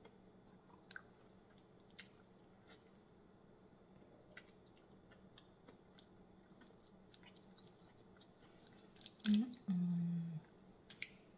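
Faint, scattered clicks and small wet crackles of a cooked shrimp's shell being peeled by hand, with quiet chewing. Near the end, a louder knock followed by a short closed-mouth hummed "mm".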